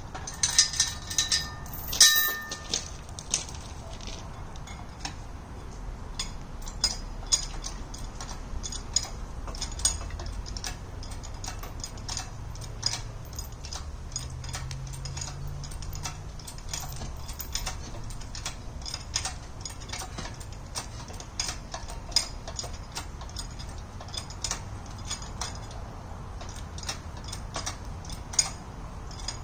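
Hand-pumped hydraulic engine hoist lifting a concrete-footed fence post: a steady run of light metallic clicks from the pump handle with each stroke. Near the start, denser clinks and a ringing clank as the lifting chain is hooked on.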